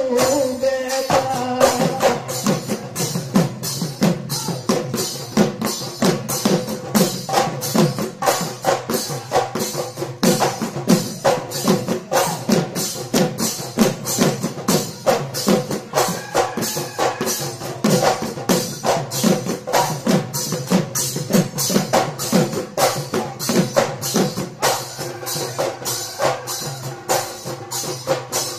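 Assamese Bihu dhol drums played live in a fast, steady rhythm of about three beats a second, with a bright metallic jingle on the strokes, likely from the cymbals of the husori troupe.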